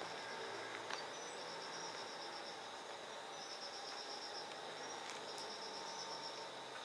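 Crickets chirping in high pulsed trills of about a second each, repeating every one to two seconds, over a steady background of insect hiss. A faint steady hum runs under them, and there is one light click about a second in.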